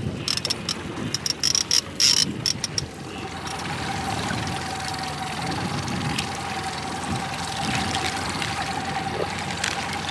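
A fishing reel ratcheting in quick short spurts for the first three seconds while a hooked salmon is played. Under it, an outboard motor runs steadily with a constant hum.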